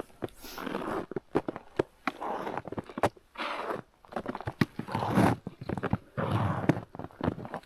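Footsteps crunching through snow and crusted ice, a heavy step about every second, with sharp clicks and crackles between the steps.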